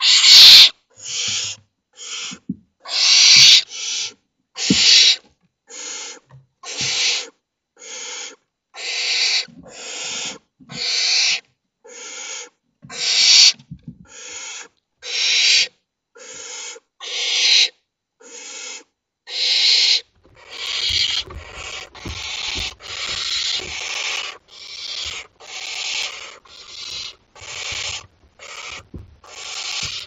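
Barn owl chicks giving their harsh, hissing begging calls (the 'snore' of young barn owls asking for food), a rasping call about once a second. The calls come faster and overlap from about two-thirds of the way through, mixed with a few soft thumps.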